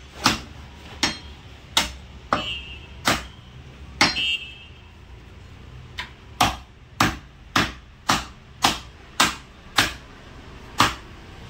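Butcher's cleaver chopping goat meat on a wooden chopping block: sharp chops about once a second, a pause of about two seconds, then a faster run of about two chops a second. A few strikes leave a short metallic ring from the blade.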